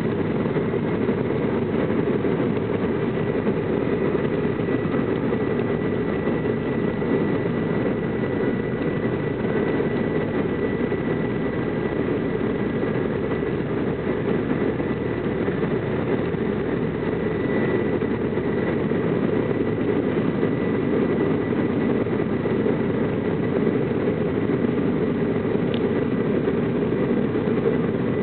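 Cabin noise of an Embraer E175 at takeoff power, heard from a window seat over the wing: its GE CF34-8E turbofans give a steady, loud roar with a thin high whine held above it, through the takeoff roll and the first of the climb-out.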